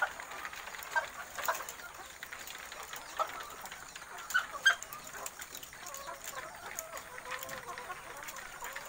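Many caged hens clucking together, with short sharp calls standing out here and there, the loudest about four and a half seconds in.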